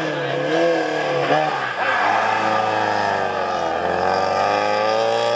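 Race car engine running at high revs, its pitch wavering and dropping with gear changes, then climbing steadily through the last second or so as it accelerates.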